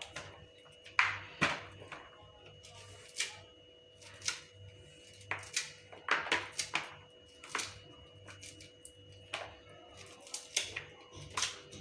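A knife prying kernels off a fresh maize cob, giving irregular sharp clicks and snaps as the kernels break loose, over a faint steady hum.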